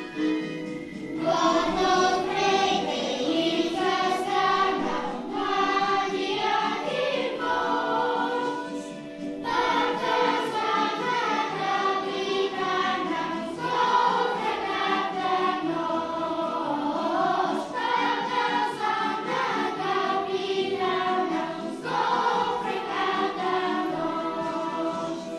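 Children's choir singing a song together over instrumental accompaniment, with two brief pauses between phrases.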